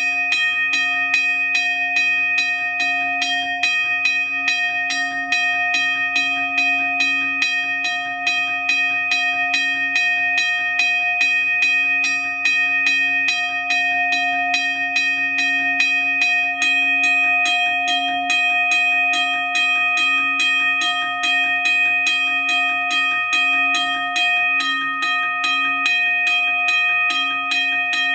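Union Switch & Signal Model 15-A 'teardrop' railroad crossing bell ringing without pause. Its electromagnet-driven clapper strikes the gong about three to four times a second, and the bell's tone rings on steadily between strokes.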